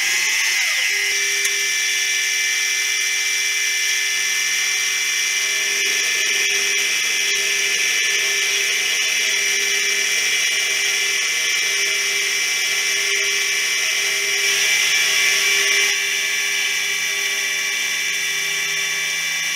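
Milling machine running with its end mill cutting the end of a steel block under flood coolant: a steady high machine whine with the hiss of the cut. It gets a little louder for a second or so about three-quarters of the way through.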